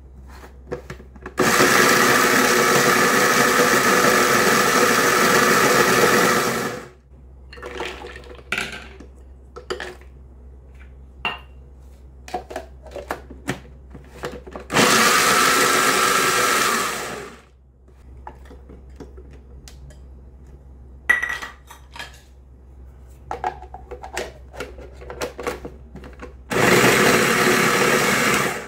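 Small electric food processor running in three bursts: about five seconds, then about two and a half, then about two, each winding down as it stops. It chops raisins and then walnuts in its plastic bowl. Short clicks and knocks of the bowl and lid fall between the bursts.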